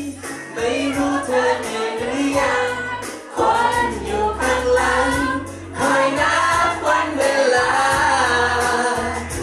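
A man singing a Thai pop song live into a handheld microphone over backing music with a steady bass line.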